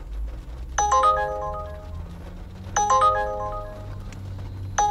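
Smartphone ride-request alert from the Uber driver app: a short chime of several quickly stacked notes, repeating about every two seconds while a trip offer waits to be accepted.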